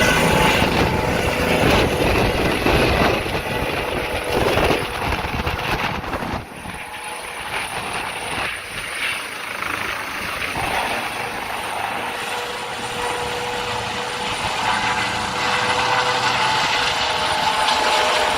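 Medical helicopter's turbine engine and rotor running, a steady whine over the rotor noise. It eases about six seconds in and grows louder again near the end.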